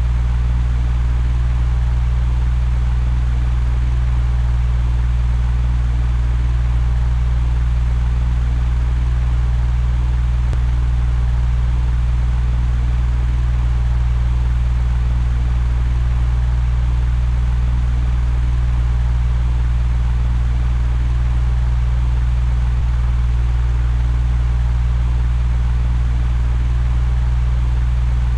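Electric fan running steadily: a constant low motor hum under an even rush of air.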